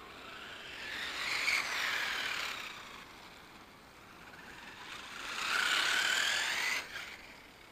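A small electric radio-controlled car's motor whines over tyre noise on asphalt as it drives past close by twice, once about a second and a half in and again around six seconds. The pitch falls on the first pass and rises on the second, and the second pass drops off sharply near the end.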